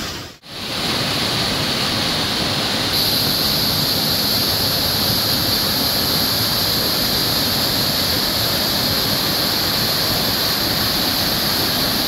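Small forest waterfall cascading onto rocks: a steady rush of falling and splashing water, which cuts out for a moment about half a second in.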